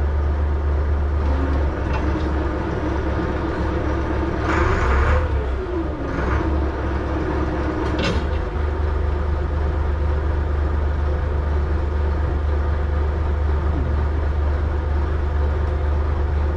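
Fishing boat's diesel engine running with a steady low drone. A short burst of hissing noise comes about four and a half seconds in, and a sharp knock about eight seconds in.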